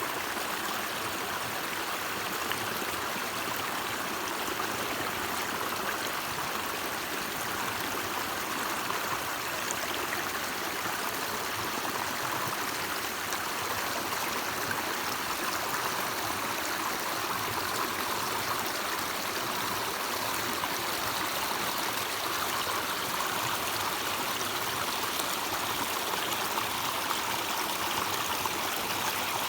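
A stream of snowmelt-cold water flowing steadily over rocks, an even, unbroken splashing with no pauses.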